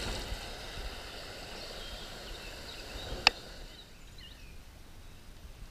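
Running water of a small river over a riffle, a steady hiss that drops quieter about three and a half seconds in. Just before, one sharp click.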